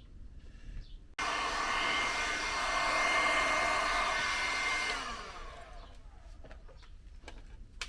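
Electric heat gun switched on about a second in, blowing steadily with a motor whine while it shrinks heat-shrink tubing over soldered wire joints. It is switched off after about four seconds and winds down with a falling whine.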